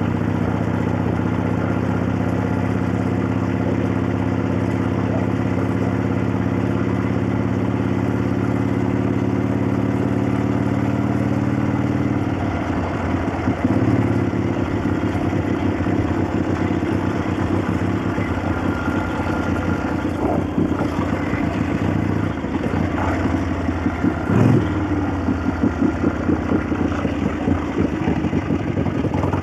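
1965 Harley-Davidson XLCH Sportster's 900 Ironhead V-twin running. For about the first twelve seconds it holds a steady engine speed. After that it runs more unevenly as the speed changes, with a couple of sharp loud moments.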